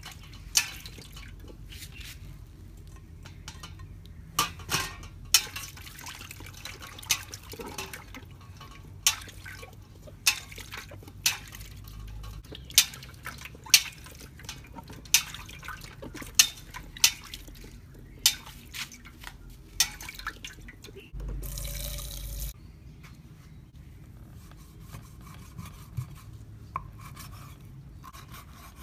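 Water splashing and dripping, with sharp clinks about once a second, then a brief rush of noise about three quarters of the way through.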